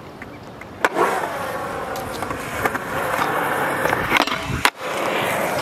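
Skateboard wheels rolling on concrete, growing louder as the rider comes close, with a sharp clack of the board about a second in and another near the end.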